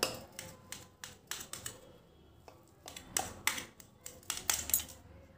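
Knife cutting through soft steamed semolina dhokla, its blade tapping against the stainless steel plate beneath in irregular clicks that come in small clusters.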